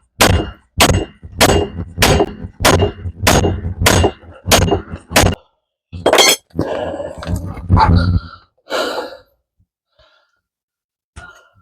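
Hammer blows on a stuck steel front wheel hub to break it loose from the knuckle: about nine quick ringing metal strikes, then a pause, one more blow about six seconds in, and some clattering after it.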